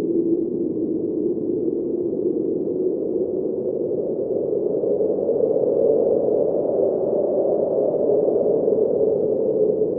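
Blizzard wind howling: a steady, muffled rush with a hollow whistling tone that rises a little in pitch about halfway through and then holds.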